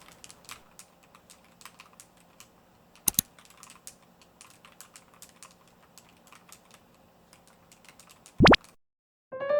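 Typing on a YUNZII X75 mechanical keyboard with Jellyfish switches: quick, irregular key clicks, with a louder double stroke about three seconds in. Near the end a loud brief rising sweep cuts the typing off, followed by a moment of silence.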